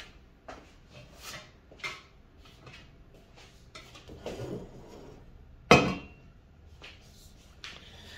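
Stainless steel saucepans being moved about on a wooden table as a lidded Demeyere Atlantis saucepan is brought in beside the Mauviel saucier: scattered light knocks and clinks, then one loud knock a little past halfway as a pan is set down.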